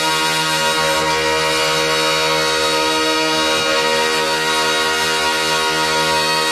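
Droning minimalist soundtrack: a dense chord of many steady pitches held unchanged at a constant loudness.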